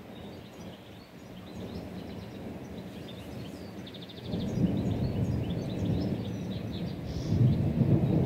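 Rolling thunder: a low rumble that grows louder about four seconds in and swells again near the end. Small birds chirp over it, with one short rapid trill just before the rumble strengthens.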